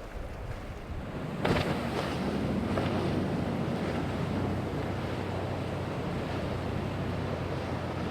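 Surf and wind buffeting the microphone while a small boat's outboard engine runs through rough water, with a sudden loud crash of water about a second and a half in, then a steady roar of waves.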